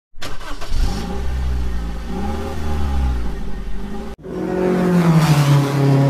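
An engine revving up and down twice, cut off abruptly about four seconds in. It is followed by a louder held tone that slides down in pitch and settles, the start of a musical sting.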